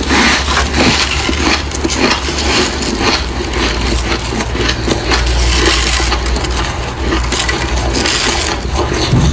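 Close-up crunching of freezer frost being bitten and chewed, with quick, irregular crackling crunches, over a steady low hum.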